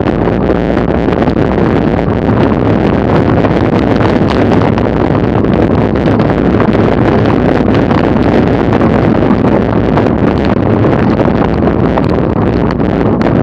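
Loud, steady wind noise buffeting the microphone of a camera on a racing bicycle travelling at about 35 mph.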